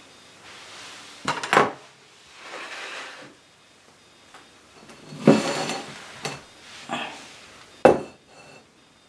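Kitchen clatter: a chef's knife and fork set down on the counter, then a glass mixing bowl handled and set down on the countertop, a handful of separate sharp knocks and clinks with a short ring, the loudest two coming past the middle and near the end.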